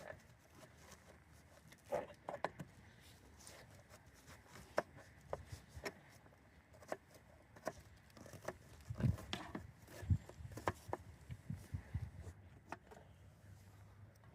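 Irregular light clicks and taps from handling food and cooking gear during camp meal preparation, with a few duller thumps about two-thirds of the way through.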